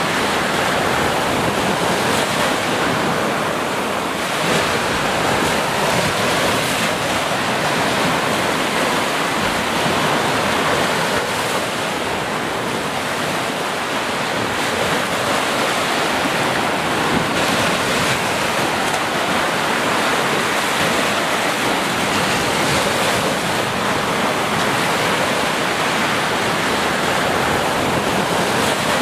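Small ocean waves breaking and washing up a sandy beach: a continuous rush of surf.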